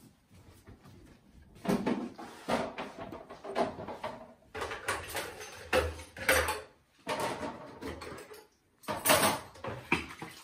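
Irregular knocks, bumps and clatters of things being handled in a kitchen sink, the loudest one about nine seconds in.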